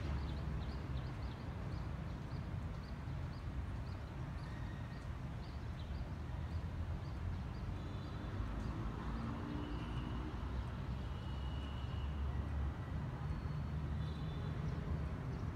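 Outdoor city ambience: a steady low rumble of distant traffic, with a small bird chirping rapidly for the first couple of seconds and a few short high calls later on.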